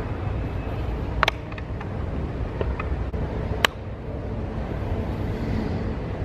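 Steady low background rumble, with a smartphone and a small charger being handled on a hard table: two sharp clicks, one about a second in and one about halfway through, and a few fainter ticks between them.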